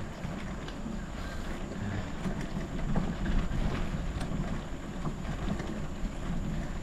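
Gravel bike riding over a rough dirt and gravel trail: a steady low rumble from the tyres and frame, scattered small clicks and rattles, and wind on the microphone.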